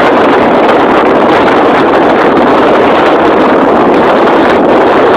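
Strong wind buffeting the microphone: a loud, steady rushing noise that masks everything else.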